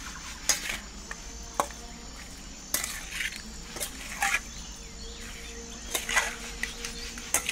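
Metal spoon mixing chunks of raw chicken in a wet marinade in a stainless steel bowl: scattered scrapes and clinks of spoon against steel, about six or seven separate strokes.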